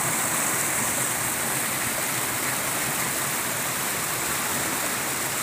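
Shallow rocky river rushing and splashing over and between boulders in small cascades: a steady, even rush of water.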